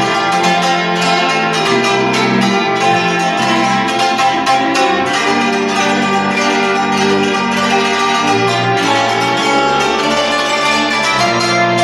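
Cimbalom playing a Hungarian folk tune: quick runs of hammered notes over ringing lower notes that change about once a second.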